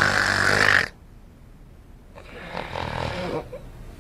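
A woman snoring in her sleep, twice: a loud snore at the start, then a softer one about two seconds in.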